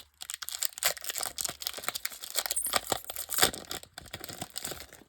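Foil wrapper of a Pokémon booster pack crinkling and being torn open in a dense run of crackles, with one sharper crackle about three and a half seconds in.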